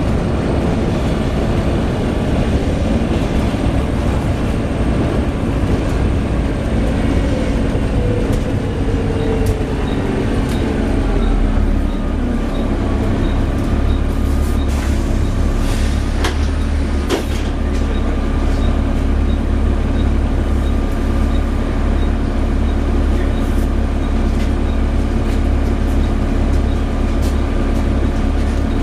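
Volvo B7TL double-decker bus heard on board: the diesel engine's steady drone with a whine that falls in pitch as the bus slows, then a steady high whine. A faint regular ticking comes about twice a second through the middle, with a few knocks.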